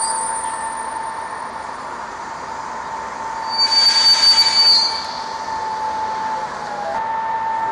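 Czech class 460 electric multiple unit standing at the platform, giving off a steady high electrical whine. About three and a half seconds in, a louder burst of hiss with a high squeal lasts about a second.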